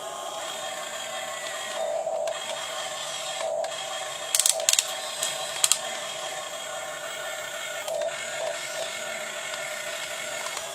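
Small electric motors and gear drives of a scale RC excavator whirring steadily, the whine swelling now and then as it moves, with a quick run of sharp clicks about four and a half seconds in and another near six seconds.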